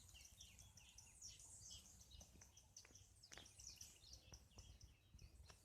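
Faint chirping and twittering of several small birds, many short high calls overlapping, with a few faint ticks among them.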